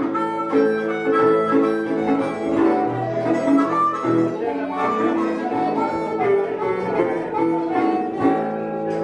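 Delta blues harmonica played cupped against a microphone, with held, wailing notes, over a metal-bodied resonator guitar accompaniment.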